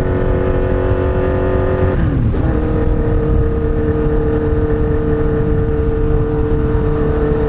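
Kawasaki Z1000's inline-four running through loud Danmoto XG-1 slip-on mufflers at cruising speed, a steady drone over low wind rumble. About two seconds in the engine note drops briefly, as in a gear change, then holds steady at a lower pitch.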